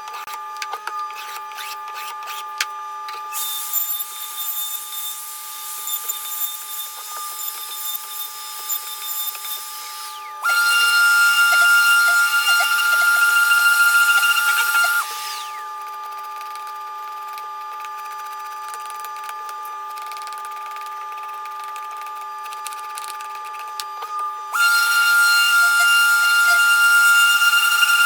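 Electric power tool motor running with a steady whine and light clicking. Twice, about ten seconds in for some five seconds and again near the end, it gets louder and its whine steps up in pitch, as if working under load.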